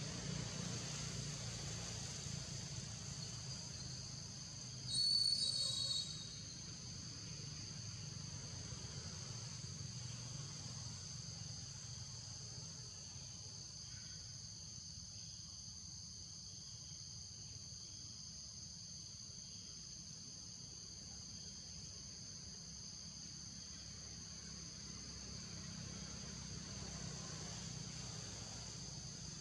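A steady chorus of insects in the forest canopy, heard as a continuous high-pitched buzz with a low steady rumble beneath it. About five seconds in, a brief, louder, high-pitched call sounds for about a second.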